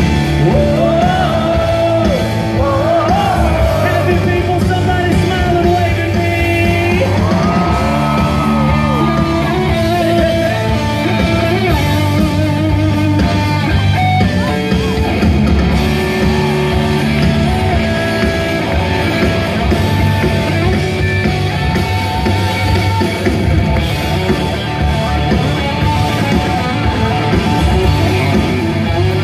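Live band playing loud through a PA, with electric guitar and a drum kit, and a man singing over it.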